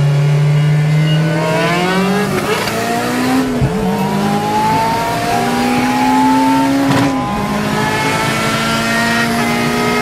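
Car engine at full throttle, accelerating hard through the gears: the pitch climbs steadily, drops at upshifts about 3.5 and 7 seconds in, then climbs again. Heard from inside the car.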